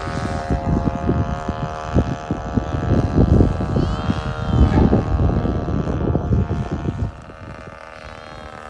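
Gerald Smith Skylark ignition model-aircraft engine running steadily at about half throttle, turning its propeller as the control-line model flies. Wind buffets the microphone until about seven seconds in.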